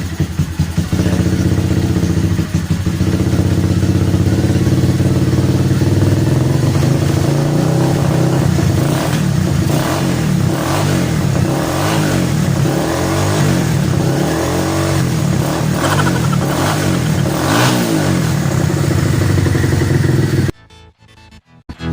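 Kawasaki Barako 175 motorcycle's single-cylinder four-stroke engine starting up and running, revved up and down repeatedly through the middle. The engine sound cuts off abruptly near the end.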